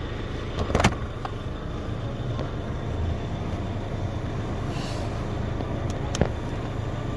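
Steady low vehicle rumble, with two sharp clicks, one about a second in and one about six seconds in.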